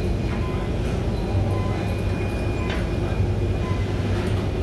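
Steady low rumble of gym background noise, with a few faint clicks.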